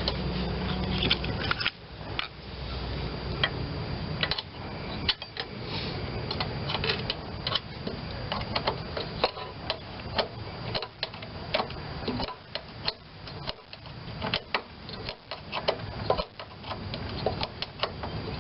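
Ratchet wrench clicking in short runs while tightening the carburetor mounting fasteners on a small Tecumseh mower engine, with small metal-on-metal taps and clinks from the tool.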